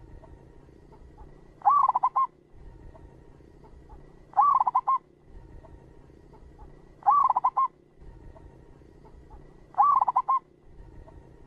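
Zebra dove (perkutut) cooing: four short phrases of rapid, clear notes, each a rising-and-falling first note followed by quick staccato notes, repeated about every two and a half seconds.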